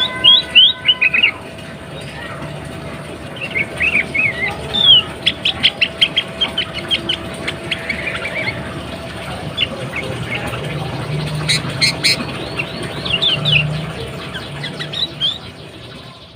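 Sooty-headed bulbul (kutilang) calling in short bursts of quick chirping notes, including a fast run of about a dozen notes, over a steady background hum. This is offered as the call of a female in breeding condition, used to lure male kutilang and set them singing. The sound fades out near the end.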